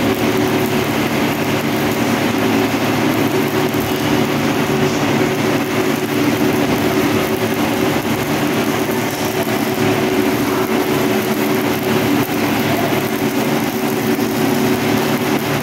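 Electric arc welding on black iron pipe: the arc crackles and sizzles steadily as the weld bead is laid, over a steady machine hum.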